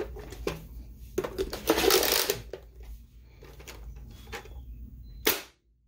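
Light scattered clicks and rattles, with a louder clattering burst about two seconds in and a sharp click near the end: a bundle of foam darts from a tennis-ball-launcher shot landing and knocking against cups and hard surfaces.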